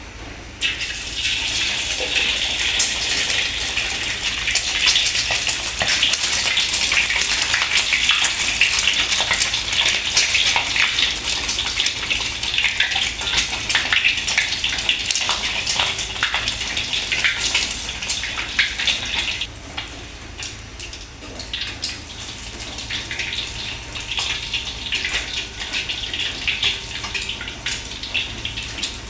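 Water running from a kitchen tap and splashing. It is turned on about half a second in, stops briefly about two-thirds of the way through, then runs again.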